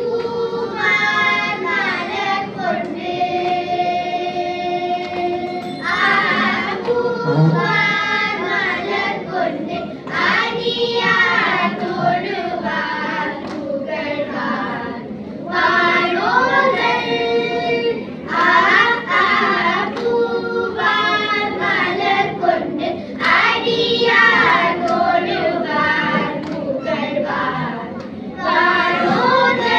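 A group of children singing a Tamil devotional hymn together into microphones, in phrases with some long held notes.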